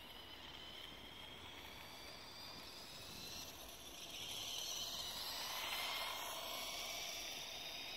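Electric drive of a Lego RC motorcycle whining as it drives by. The high whine grows louder from about four seconds in, is loudest near six seconds as the bike passes close, and fades slightly after.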